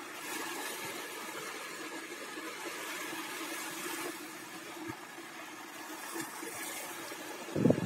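Small Baltic Sea waves breaking and washing over a shallow, rocky shore: an even, steady rushing of surf.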